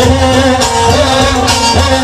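Live qawwali music played loud through a sound system: a harmonium melody of held notes that step in pitch, over heavy bass and drum beats.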